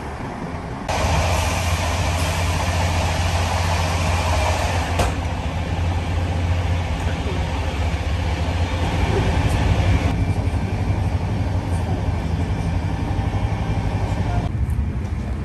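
Passenger train running at speed, heard inside the carriage: a steady low rumble with a broad hiss of wheels on rails. It steps up suddenly about a second in and eases slightly near the end.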